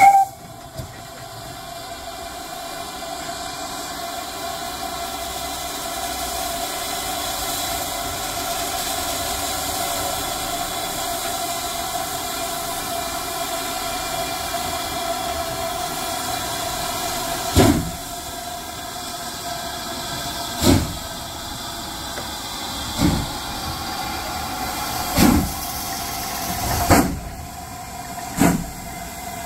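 Great Western steam locomotive hissing steadily with steam, then starting away: slow exhaust chuffs begin about two-thirds of the way in and gradually quicken as it gathers speed.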